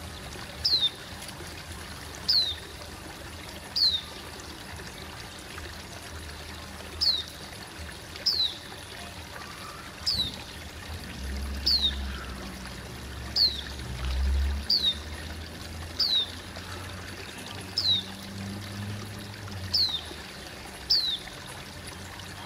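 Steady bubbling and trickling water from an aquarium air stone, with a short, high chirp that slides downward, repeated every one to two seconds. A low rumble comes in around the middle.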